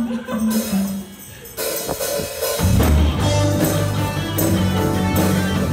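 Live church worship band playing a song intro. A sparse melodic line comes first, then about two and a half seconds in the full band with drum kit and bass comes in on a steady beat.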